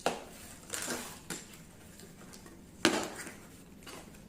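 Cardboard packaging being handled and opened: several sharp knocks and clacks, the loudest about three seconds in, with brief rustling of cardboard between them.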